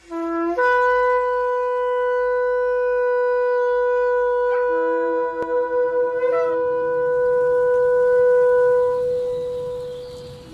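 A shofar blown in one long blast: a short low note that leaps up to a high note held for about ten seconds, with a lower tone sounding under it for a couple of seconds midway, fading out near the end.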